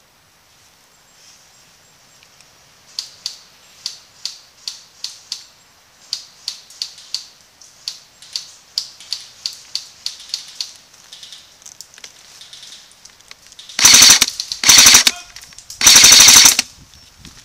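Airsoft guns firing: a run of sharp single shots about three a second, then three loud short bursts of rapid full-auto fire near the end.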